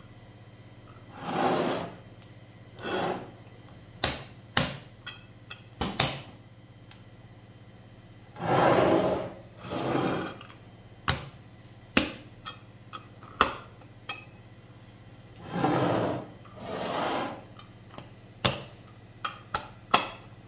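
Metal twist-off lids on glass jars of pickled red onions are turned by hand, with a grinding rub that comes in three pairs of short strokes. Between them, sharp clicks and knocks come from the glass jars and lids being handled and set down on the table.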